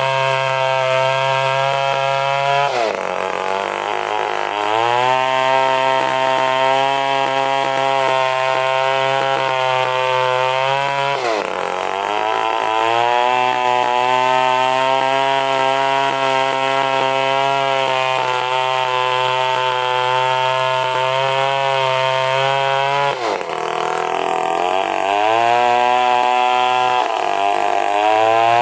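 Stihl chainsaw running under load, cutting angsana wood into planks. Its engine speed drops sharply and climbs back up four times: about 3, 11, 23 and 27 seconds in.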